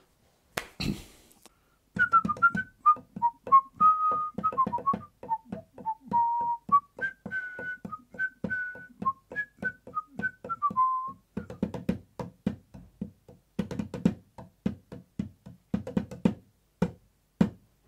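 A man whistling a tune while drumming his fingers on a wooden desk in a quick rhythm. The whistling stops about halfway through, and the finger drumming carries on until near the end.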